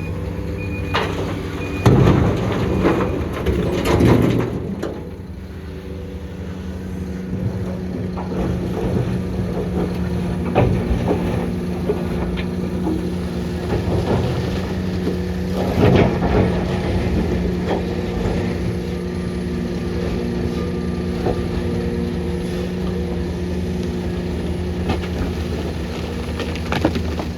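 Heavy diesel engine of construction machinery running steadily under load, with several loud crashes about two and four seconds in, again past the middle, and near the end.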